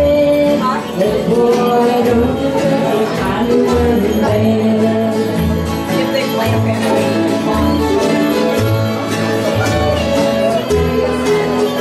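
Acoustic bluegrass band playing: guitars, banjo, fiddle and upright bass, with the bass changing notes about once a second under the melody.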